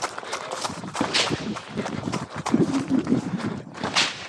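Quick running footsteps crunching on gravel: an uneven patter of steps.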